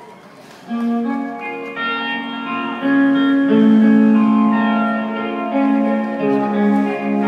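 Live rock band's electric guitars starting a song: after a brief lull, sustained, overlapping guitar notes come in about a second in and carry on.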